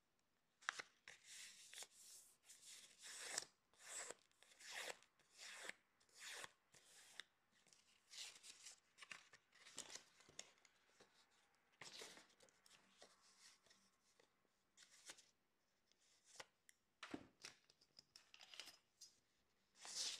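A sheet of white paper being folded by hand: a string of short, irregular rustles as the paper is creased and smoothed flat.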